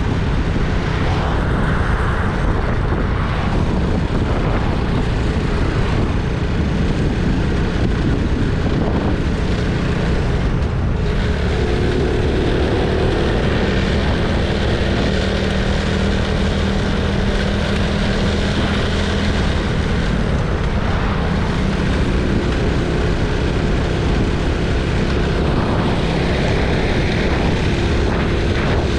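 Honda Innova 125's small single-cylinder four-stroke engine running at a steady cruise, with loud, even wind rush on the microphone from riding on the road.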